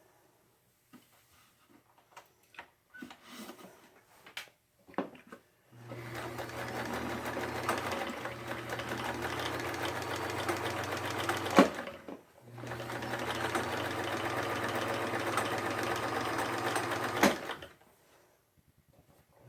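Vintage Sears Kenmore electric sewing machine sewing a straight stitch in two runs, about six and five seconds long: a steady motor hum with fast needle clatter, each run ending in a sharp click as it stops. Before the sewing there are a few light clicks as the machine is set up.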